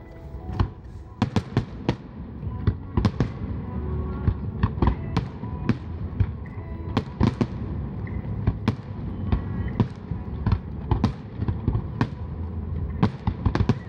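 Fireworks display: shells bursting in an irregular run of sharp bangs, over a continuous low rumble.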